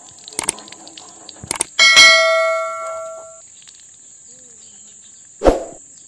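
Subscribe-button sound effect: a few sharp mouse clicks, then a notification bell chime about two seconds in that rings out and fades over about a second and a half. A short thump follows near the end.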